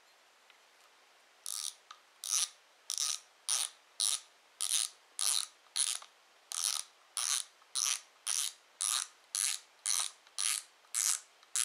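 Shimano Twin Power 4000PG spinning reel's front drag clicking in a series of short ratcheting bursts, roughly two a second, as the spool is turned by hand against the drag. The bursts start about a second and a half in.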